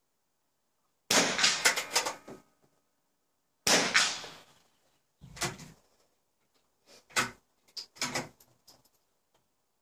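Two .22 rimfire target rifle shots about two and a half seconds apart, a double shot on one slow run of the moving target, each ringing on in echo. Several lighter clacks and knocks follow.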